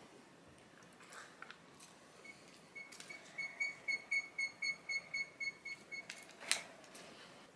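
Electronic beeping: short, high, evenly spaced beeps at about four a second, starting a couple of seconds in and stopping after about four seconds. A single sharp click follows near the end, over faint chewing.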